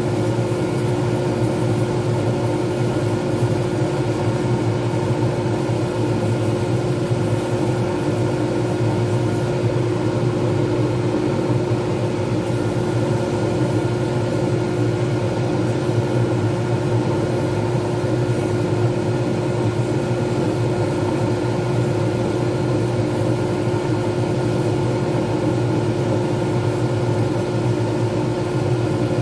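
Lathe motor running at a steady speed with a constant hum, as a wet sanding pad is held against the spinning resin pen blank.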